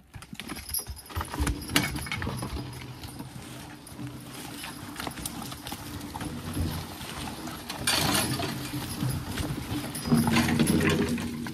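Team of Belgian draft horses moving in harness: hoof steps on the ground with scattered clinks and knocks, busiest about eight seconds in and again near the end.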